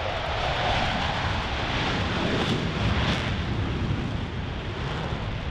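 Blue Angels F/A-18 Super Hornet jets in a three-ship formation taking off and passing low, a loud, rushing jet engine noise that swells to its loudest about halfway through.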